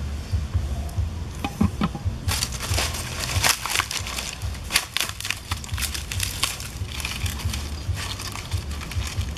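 Fan-palm leaves rustling and crackling as they are handled and pressed down over an earthenware cooking pot, starting about two seconds in and easing off after about seven seconds, over a steady low rumble.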